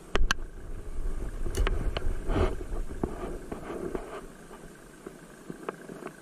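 Sharp clicks and knocks from handling a spinning rod and reel, the loudest just after the start, over a low rumble of wind on the microphone that drops away about four seconds in.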